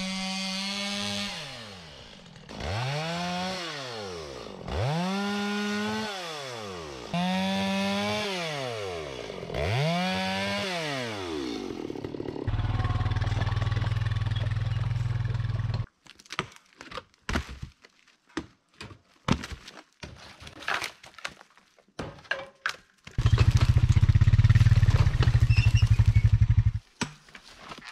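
Four-wheeler (ATV) engine revving up and easing off five times in a row, then running steadily. After that come several seconds of scattered knocks and clatter. The engine is back, loud and close, for a few seconds near the end.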